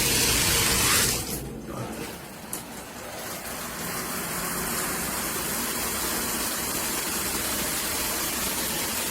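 Large stainless-steel rain shower head spraying water: a loud gush for about the first second, a brief drop, then a steady hiss of falling water.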